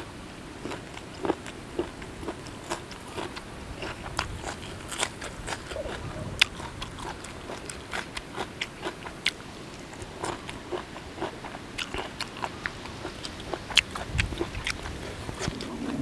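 Close chewing of golden apple snail salad: a steady run of sharp, irregular crunches and wet chews from the firm snail meat.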